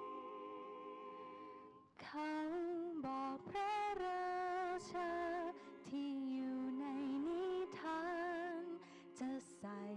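A cappella choir singing: a held chord fades out about two seconds in, then a solo voice with vibrato sings the melody over the choir's sustained note.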